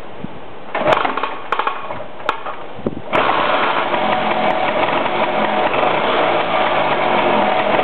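Lambretta TV175 Series 3 scooter's two-stroke single-cylinder engine starting: a few uneven bursts and clicks, then it catches about three seconds in and runs steadily at idle.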